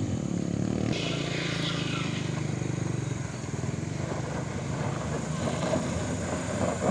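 Mitsubishi L300 pickup's engine running under load as it crosses a rough gravel road, mixed with the engines of motorcycles close by.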